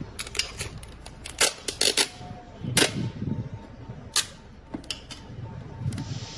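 Sharp, irregular clicks and snaps of plastic being handled as a roll of tape is opened, about half a dozen spread over a few seconds.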